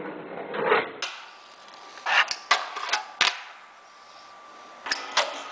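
Fingerboard wheels rolling across a wooden tabletop, with sharp clacks as the tiny deck is popped and lands: a cluster of clacks about two to three seconds in and more near the end.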